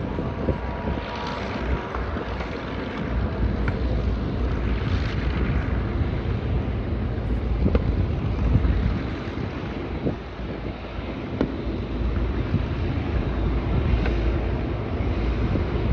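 Douglas DC-6's four radial piston engines running as the propeller airliner rolls along the runway, a steady low rumble. Wind buffets the microphone.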